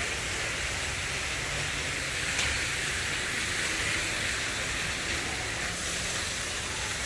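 Steady outdoor hiss-like rushing noise with no clear source.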